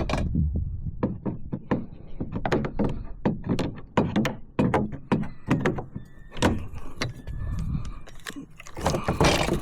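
Irregular knocks and thunks against a kayak, several a second, as a just-landed trout is handled aboard.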